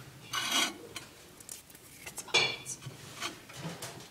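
Handling of a dish and utensil: several short scrapes and clinks against a plate, the loudest about half a second in and again a little past halfway.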